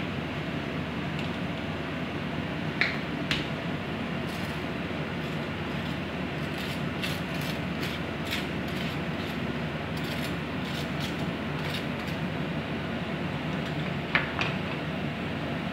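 A table knife scraping sauce across slices of toasted bread on a plastic cutting board, with a run of faint scrapes and clicks in the middle. Two pairs of sharp knocks come, one about three seconds in and one near the end, over a steady background hiss.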